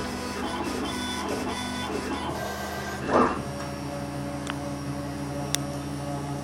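Stepper motors of a DIY CNC machine whining and whirring as they drive a felt-tip marker over a DVD, the pitch shifting with each move, with a brief louder whir about three seconds in and two sharp ticks later.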